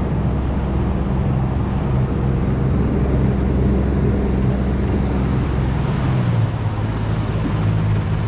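Boat's outboard motor running steadily, its low note changing about six seconds in.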